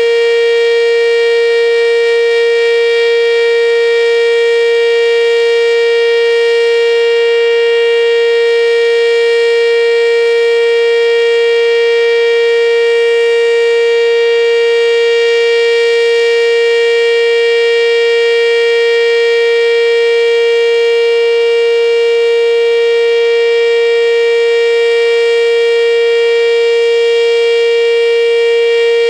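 ACA Banshee outdoor warning siren sounding a steady, loud alert tone during a siren test, holding one pitch with no rise or fall.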